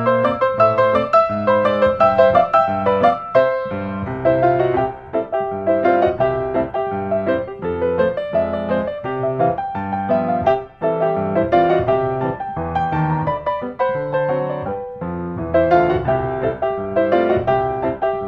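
Background music: an instrumental with a busy run of quick melodic notes.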